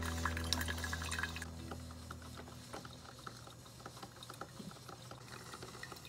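Drip coffee maker near the end of its brew cycle: hot water gurgling and dripping through into the glass carafe, with small scattered ticks and crackles. A steady low hum fades out about halfway through.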